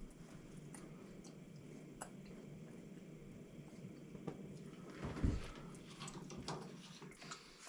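Gas stove burners heating a cast iron griddle, a faint steady hiss, with a few soft handling knocks and a duller thump about five seconds in.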